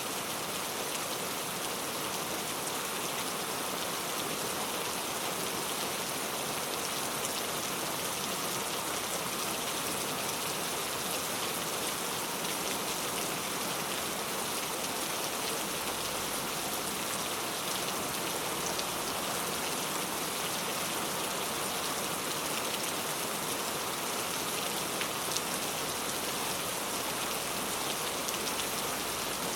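Heavy rain falling steadily: a dense, even hiss of drops with no let-up, with the odd sharper drop hit standing out.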